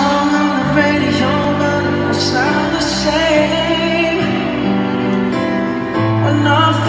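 Live concert music recorded from the audience in an arena: a singer over long held chords and bass notes, the notes changing every second or two.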